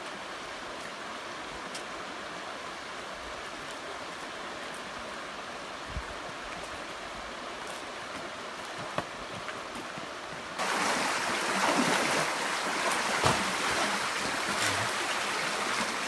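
Creek water flowing over rocks, a steady rushing noise that becomes suddenly louder and closer about ten seconds in.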